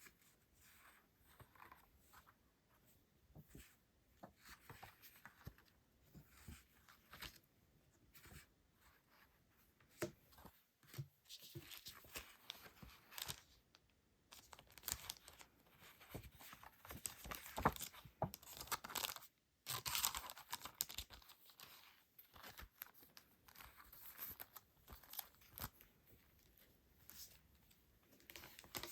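Hands opening packaging: tearing and crinkling in a run of short rustles and clicks, loudest in a stretch about two-thirds of the way through.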